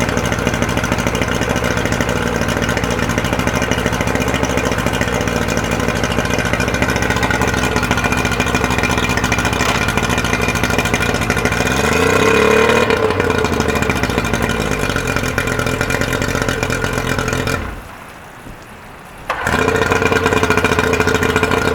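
Yamaha 90 hp outboard motor running steadily. About halfway through it is revved up once and eases back down. Near the end the sound drops out for about a second and a half, then the engine runs again.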